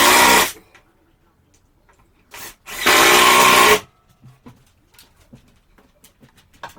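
Power drill driving screws while a shelf is put up, in two short runs of about a second each: one at the start and one about three seconds in.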